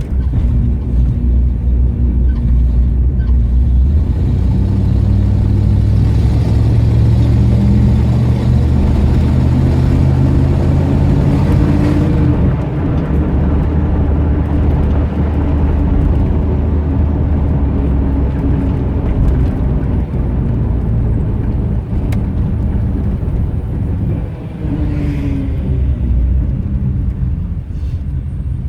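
1989 Dodge Ramcharger's engine running on the road, its pitch climbing for several seconds under throttle, dropping abruptly about twelve seconds in, then holding steady. Near the end there is a brief, faint high tone.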